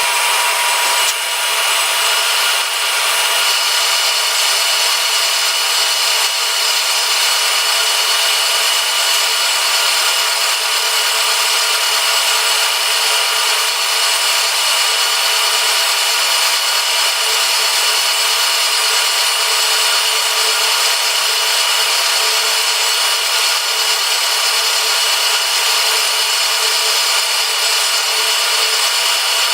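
Milling machine cutting metal on a mill vise: a steady, high-pitched cutting noise with several held tones, one more tone joining a few seconds in.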